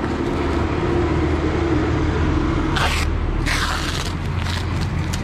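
Packing tape being ripped off bubble wrap, with the plastic crinkling: two loud rasping tears about three seconds in. A steady low hum runs underneath.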